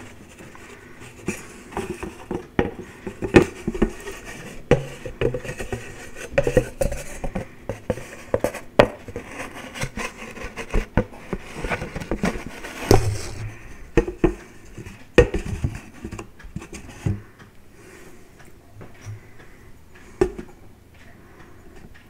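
Fingertips and nails tapping and scratching on a paper plate held close to a microphone, with a small metal cup set on the plate clinking against it. The taps come irregularly, busy for the first two-thirds and sparser after about sixteen seconds.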